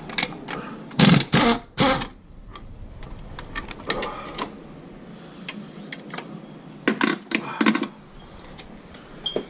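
Hand tools clinking and knocking against metal engine parts, in several short clusters of clicks and knocks, the loudest about a second in.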